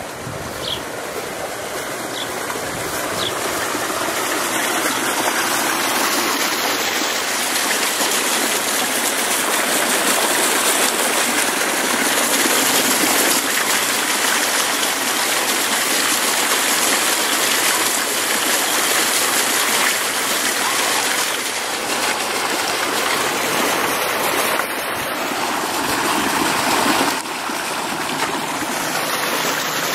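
Water pouring over a small stacked-boulder garden waterfall: a steady rushing splash that grows louder over the first few seconds and drops a little near the end.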